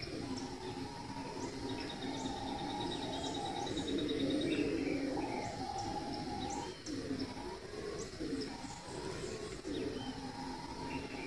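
Forest birdsong: many short high chirps and a rapid trill about three seconds in, over a continuous low calling chorus from the forest.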